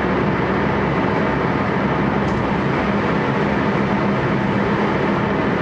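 Steady hum and hiss of a JR West 223 series 1000 electric train standing at a platform, its traction motors idle while it waits to depart.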